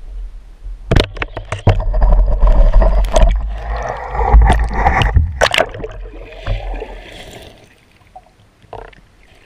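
Water splashing and churning around a spearfisher with a freshly speared pike, with several sharp knocks in the first half. It dies down near the end.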